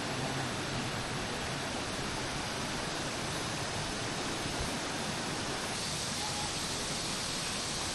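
Valley stream running: a steady, even rush of flowing water.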